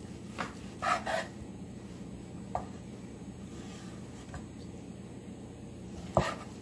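Chef's knife slicing through roast pork loin and knocking on a wooden cutting board: several separate cuts, the loudest near the end, over a steady low hum.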